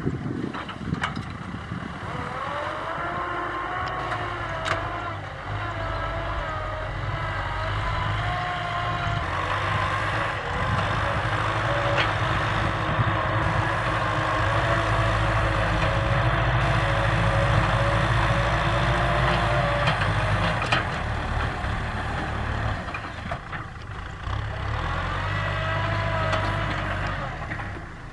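Tractor diesel engine running under load, louder toward the middle and easing off near the end, with a wavering higher tone over the low rumble.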